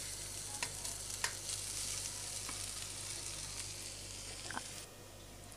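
Onion-tomato masala sizzling steadily in an iron kadhai on low flame, with a few light clicks as the steel colander and spoon knock against the pan while soaked poha is tipped in. The sizzle thins near the end.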